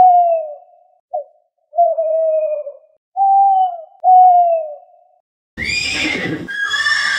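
An owl hooting five times, each hoot a clear single tone sliding a little down in pitch. About five and a half seconds in, a horse starts whinnying.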